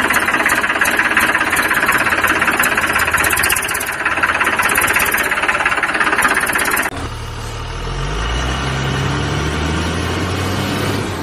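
Tractor engine running with a rapid, knocking beat; about seven seconds in it cuts to a lower truck engine revving, its pitch rising slowly.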